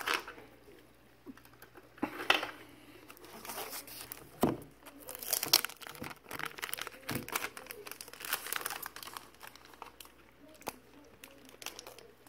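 Thin clear plastic wrapping on a new Kindle e-reader crinkling in irregular bursts as it is handled, with a few light clicks.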